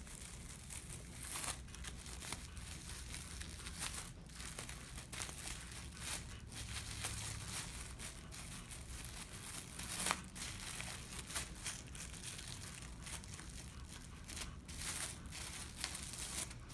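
Plastic hair wrap crinkling and rustling in irregular handfuls as it is folded and twisted around a standard poodle's topknot, with one louder crackle about ten seconds in.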